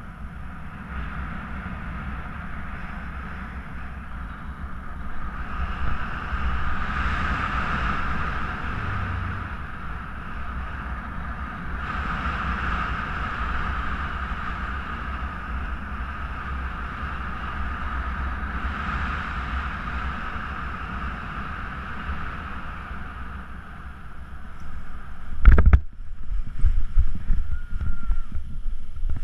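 Steady rush of airflow over a paraglider-mounted camera's microphone in flight, swelling a few times. A sudden knock comes near the end, then choppy low buffeting of wind on the microphone.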